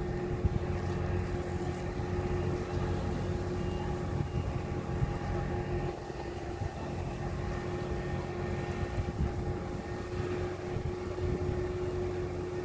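Crawler crane's diesel engine running steadily under load while holding and hoisting a heavy gantry main beam, a constant hum with a couple of held whining tones.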